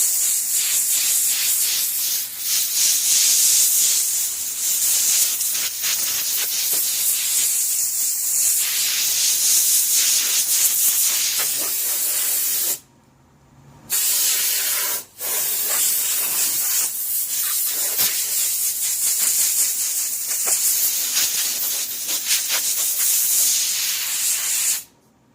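Compressed-air blow gun hissing loudly as it blasts dirt out of carpet-covered speaker cabinets. The air cuts off for about a second near the middle, dips briefly again just after, and stops near the end.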